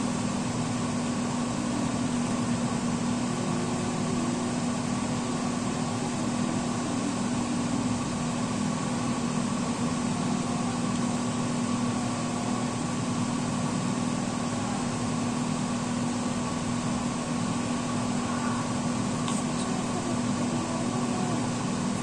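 Steady machine hum with one constant low tone, unchanging throughout.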